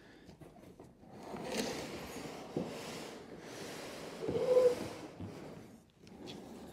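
Cardboard rustling and scraping with a few small knocks as a bicycle is worked out of its large shipping box, with a louder scrape a little past halfway.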